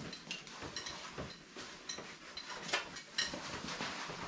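Rustling of the straps of a padded shoulder harness as it is put on and adjusted, with several light metallic clinks and clicks from its buckles and clips.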